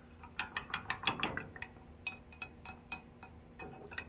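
Light, irregular clicks and taps from small fuel-sample containers and measuring gear being handled, several a second.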